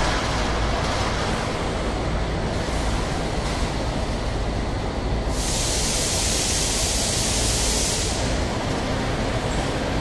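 Chili paste filling line running: a steady machinery drone and hum from the filling machine and jar conveyor. A loud high hiss starts suddenly about five seconds in and lasts about three seconds.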